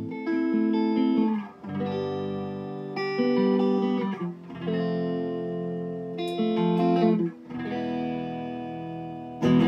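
Electric guitar played through a silverface Fender Deluxe Reverb tube amp, freshly re-tubed and being tried out: sustained strummed chords in phrases with brief breaks between them, the loudest strum near the end.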